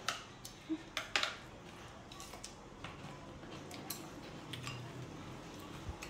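Kitchen scissors snipping through braised pork intestines, then light clicks of chopsticks against a ceramic rice bowl. Short sharp clicks, several close together in the first second and a half, then spaced out.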